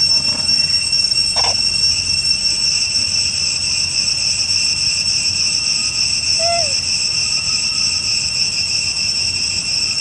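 Steady, high-pitched insect chorus ringing without a break. A brief short call rises out of it about six and a half seconds in.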